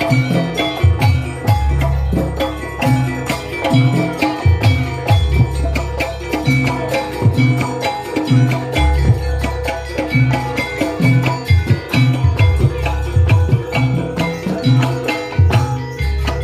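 Jaranan gamelan music: hand drums and mallet-struck metal instruments playing a fast, steady rhythm over deep, repeated bass strokes.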